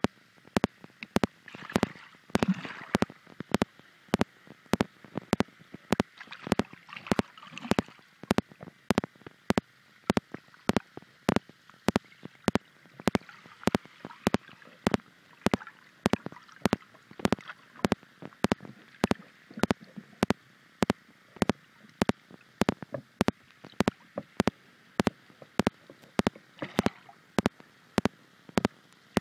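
Muffled underwater sound picked up by a submerged iPhone's microphone: a faint watery haze crossed by sharp, evenly spaced clicks about two to three times a second.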